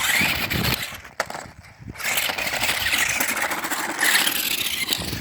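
Megalodon Storm toy remote-control monster truck driving hard on tarmac, its battery-powered motors whirring and tyres scrubbing. It runs in two goes: a short burst of about a second, then after a brief pause a longer run of about three seconds.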